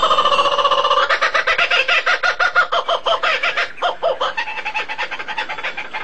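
Bird calls in a fast, pulsing chatter, several notes a second, growing quieter over the last couple of seconds.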